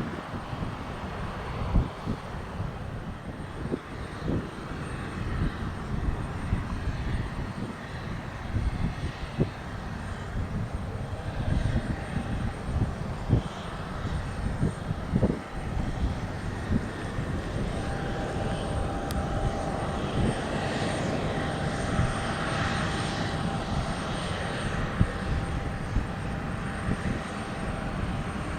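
Boeing 767-300ER airliner's jet engines on landing approach: a distant rumble, with wind gusting on the microphone. About two-thirds of the way through, a steady engine whine comes in and the roar builds as the jet nears.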